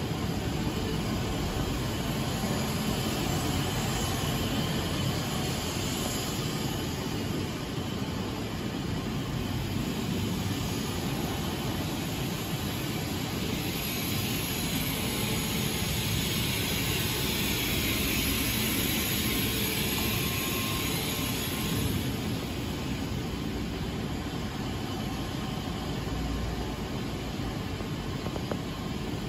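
Steady rushing hum of machinery on a battery-pack laser welding production line. About halfway through, a higher hiss joins it for several seconds.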